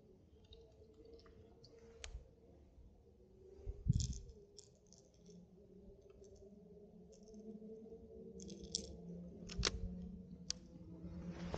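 Fishing rod and spinning reel being handled: scattered small clicks and knocks, with a low thump about four seconds in and a few sharper clicks near the end.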